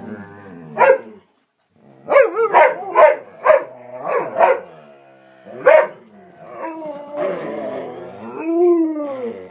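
Dogs (a Malamute, a Leonberger and an Airedale) barking and howling in excited play, not fighting. A single bark about a second in is followed by a quick run of about five barks and two more single ones, then one long howl that rises and falls near the end.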